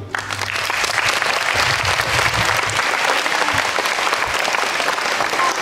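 Audience applause breaking out right as the music stops, then holding steady as dense clapping.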